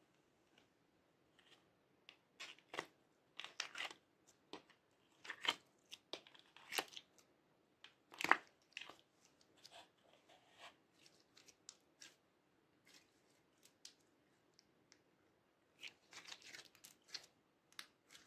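Fluffy mint slime being squeezed and stretched by hand, giving irregular small crackles and pops in clusters, with one louder pop about eight seconds in.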